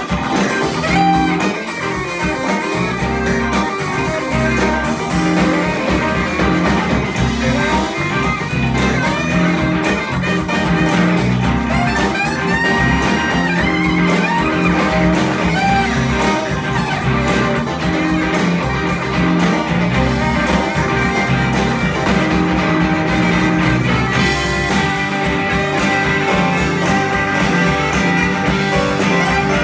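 A live band playing blues-style music, with guitar leading the playing.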